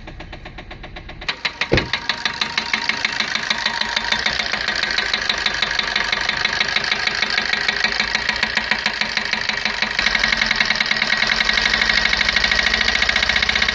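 Maruti Swift Dzire's diesel engine starting about a second in and then idling with a fast, even knock, getting louder about ten seconds in. The knock is the engine's abnormal noise, the sign of a failed fuel injector nozzle.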